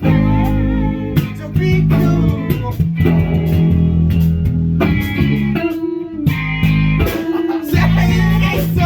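Electric guitar and bass guitar playing a rock song together over a steady low bass line.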